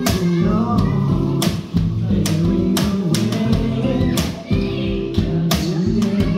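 Live acoustic guitar strumming chords with a cajon keeping the beat, its sharp slaps falling every second or so.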